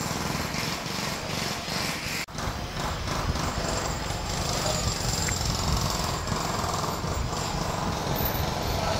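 A motor running steadily with a fast rattle, unbroken except for a momentary dropout a little over two seconds in.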